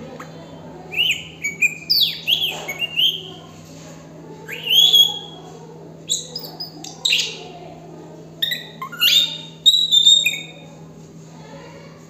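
Caged plum-headed parakeet calling in several bursts of sharp, high chirps and whistles that slide up and down in pitch.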